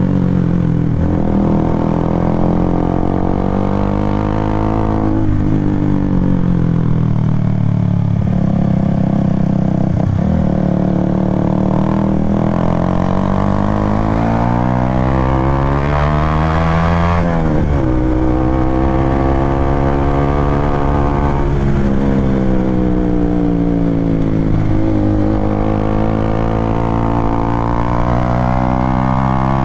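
Honda CBR sport motorcycle's engine running under way, its pitch rising and falling with throttle and gear changes. It climbs steadily for a few seconds to a peak just past halfway, then drops sharply.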